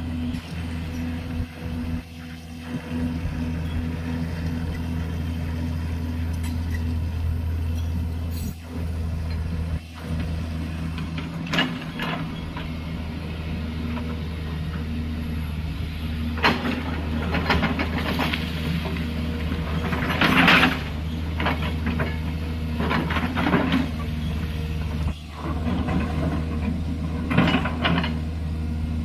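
JCB 210LC excavator's diesel engine running steadily under load, with a low even drone. From about halfway on, the bucket scrapes and clatters against gravel and stones in repeated short bursts.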